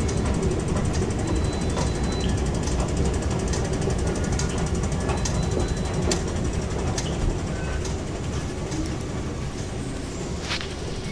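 Metro station escalator running: a steady low rumble with scattered light clicks, getting quieter about eight seconds in.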